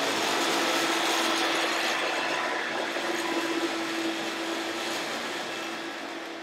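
Hoover Dial-a-Matic upright vacuum cleaner running with a steady motor hum over a strong rush of air, vacuuming carpet freshener and old macaroni-and-cheese powder off a carpet; it grows slightly quieter toward the end.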